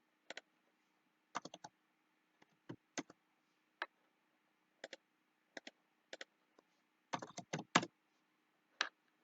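Computer keyboard and mouse clicks, scattered singly and in small groups, with a quicker run of key presses about seven seconds in, as dimension values are entered in CAD software.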